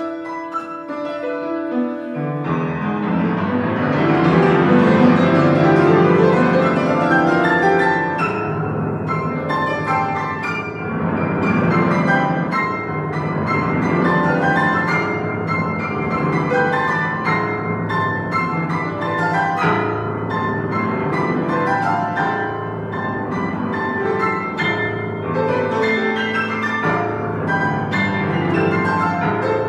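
Grand piano played solo: a dense, flowing piece. Deep bass notes come in about two seconds in, and the playing grows fuller and louder.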